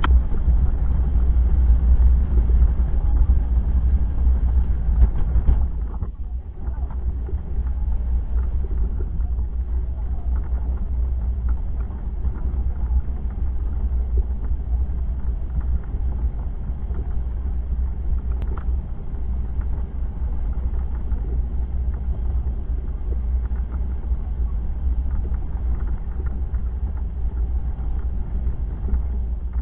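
Plow truck driving, heard from inside the cab: a steady low engine and road rumble that drops slightly about six seconds in.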